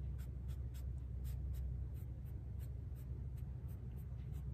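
Foam brush stroking and dabbing paint onto the painted wooden face of a sled: short, soft scratchy swishes, about three a second, over a steady low hum.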